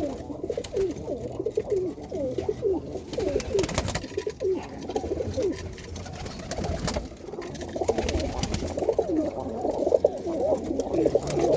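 A flock of Birmingham roller pigeons cooing together, many low overlapping coos at once, with scattered sharp clicks over them.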